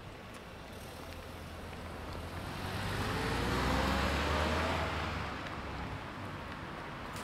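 A car drives past, its engine and tyre noise swelling to a peak about halfway through and then fading. The engine note rises in pitch as it accelerates.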